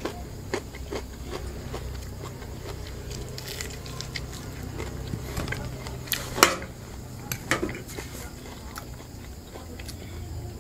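A person chewing a mouthful of pork rib and broccoli, with the scrape and clink of a metal fork against the plate; one sharper clink about six seconds in.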